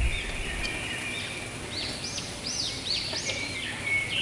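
Hot oil sizzling steadily in a wok beneath fried tempe draining in a wire strainer. A bird chirps a quick run of rising-and-falling notes from about one and a half to three and a half seconds in.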